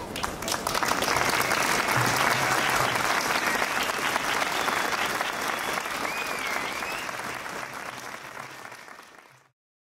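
Crowd applauding. It swells within the first second, holds, then slowly dies away and cuts off abruptly near the end.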